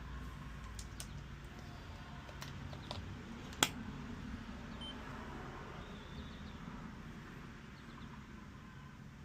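A low steady hum with a few faint clicks and one sharp click about three and a half seconds in.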